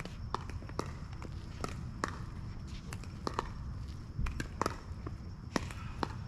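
Pickleball rally: sharp pops of paddles striking the plastic ball and the ball bouncing on the wet court, coming irregularly about every half second, over a steady low rumble.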